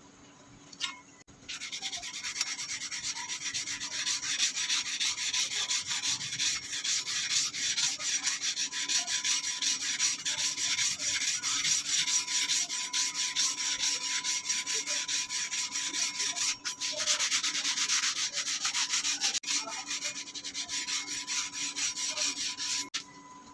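Hand sanding of a steel cleaver blade with an abrasive strip: a fast back-and-forth scrubbing rasp. It starts about a second and a half in and breaks off briefly about two thirds of the way through.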